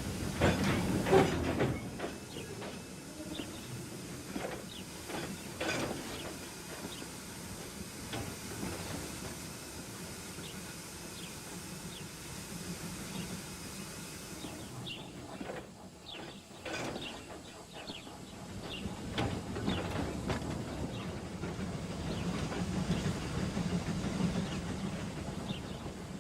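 Steam locomotive sound effect: a steady hiss of escaping steam with scattered clanks and rail clicks. The hiss cuts off sharply about halfway through, and the clanking returns in a few louder patches after it.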